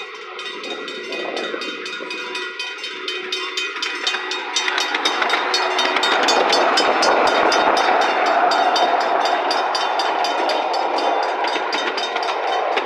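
Ride-on miniature railway train running along its narrow-gauge track, the wheels giving a rapid, even clicking over the rails under a running rumble that grows louder a few seconds in and eases near the end.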